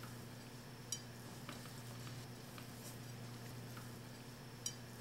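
A spoon clicking and scraping against a glass mixing bowl while cookie dough is scooped onto a metal baking sheet: a few faint clinks, the sharpest near the end, over a steady low hum.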